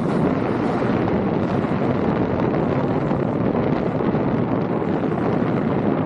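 Steady wind rushing over the microphone of a camera carried by a riding snowboarder, mixed with the hiss of the snowboard sliding over packed groomed snow.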